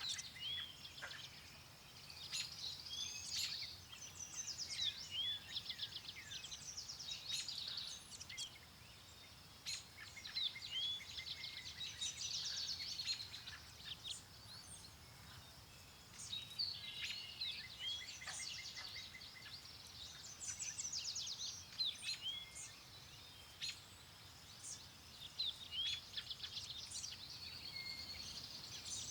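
Several songbirds chirping and singing at once, with rapid trills and short whistled notes overlapping continuously, over a faint low rush of wind.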